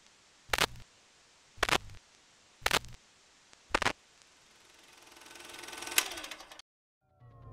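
Sound design of a record-label logo ident: four sharp mechanical clicks, about a second apart, then a rising hiss that swells to a sharp hit about six seconds in and cuts off abruptly.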